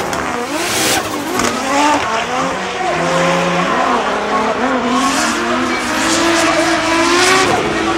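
Drift car sliding through a corner, its engine revs rising and falling while the rear tyres squeal and smoke.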